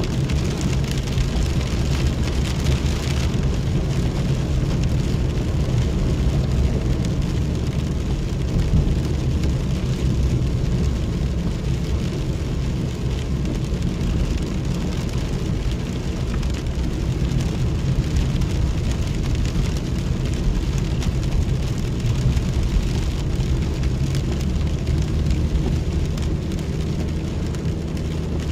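Rain falling on a vehicle, heard from inside, over a steady low engine and road hum. The sound keeps on evenly throughout, with a little more hiss in the first few seconds.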